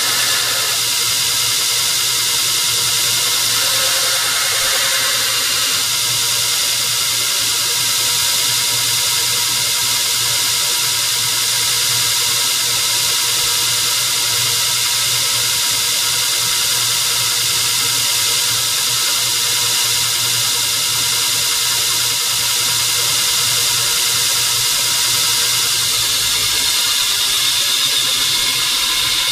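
Belt grinder running with a steady, loud hiss of the abrasive belt over a motor hum, a steel knife blade being ground freehand against the belt during the first few seconds. The low hum drops away near the end while the belt hiss carries on.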